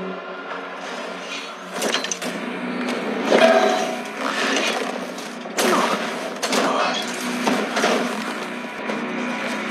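Film sound effects of a collapsing concrete building: a series of heavy crashes and thuds of falling debris, the loudest about three and a half seconds in, over a low steady drone.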